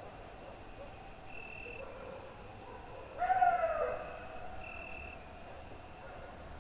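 A canine howling: one long howl about halfway through that rises slightly, then slides down in pitch over about a second. A faint, thin, high steady tone runs underneath and swells briefly twice.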